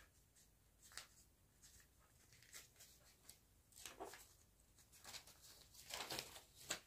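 Faint, scattered rustles of cut fabric pieces being picked up and laid out, with near silence between them.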